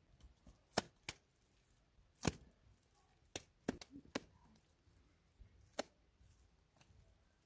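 Handfuls of wet mud slapped and pressed onto a mud wall by hand while plastering it, an irregular series of about eight sharp slaps, the loudest about a second in and just after two seconds.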